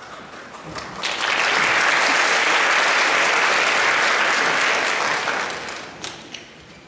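Audience applauding: a few scattered claps swell into full applause about a second in, which holds for about four seconds and then dies away near the end.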